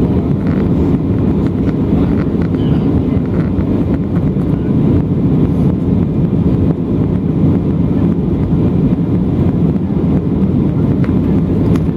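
Cabin noise of an Embraer E190 airliner climbing after takeoff, heard from inside the cabin: its General Electric CF34-10E turbofan engines and airflow give a steady low rumble with no changes.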